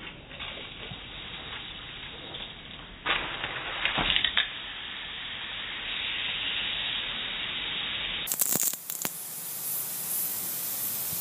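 Orbit 12-inch pop-up sprinkler with an MP 2000 rotator nozzle switched on and spraying: a hiss of water through the nozzle, with a few loud sputters about three to four seconds in, then a steady spray hiss.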